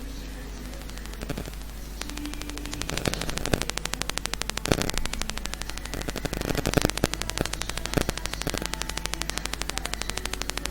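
Steady low electrical mains hum with static on the recording. About two seconds in, a rapid, even crackling tick of electrical interference starts, about ten ticks a second, with a few louder clicks among it.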